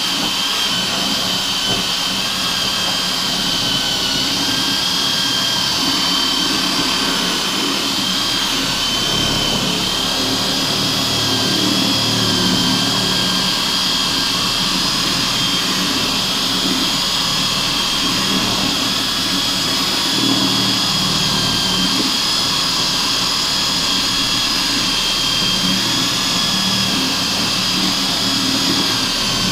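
Corded electric drill running steadily with a sharpened plate-blade cement-mixer paddle, churning and crushing Isabella grapes into wet mash in a plastic bucket. A steady high motor whine over an uneven wet churning.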